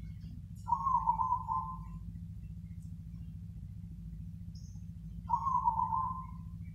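Zebra dove (perkutut) cooing: two short, pulsed coo phrases about four and a half seconds apart, of the song rhythm fanciers call the 'crossing' type. A steady low hum runs underneath.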